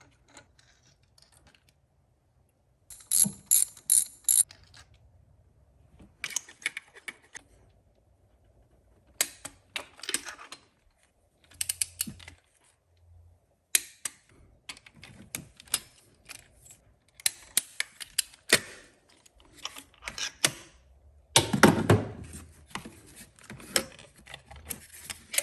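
Hand ratchet wrench clicking in repeated short runs of rapid clicks with pauses between, as spark plugs are turned in the engine bay; a louder clatter of tool contact comes near the end.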